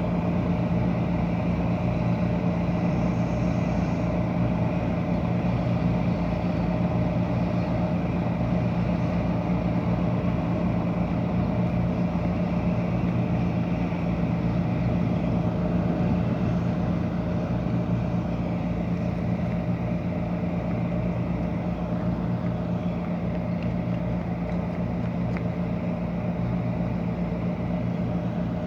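A working ship's engines and pumps drone steadily, with a fast low pulse underneath, as it pumps out a large stream of seawater. The drone eases slightly about two-thirds of the way through.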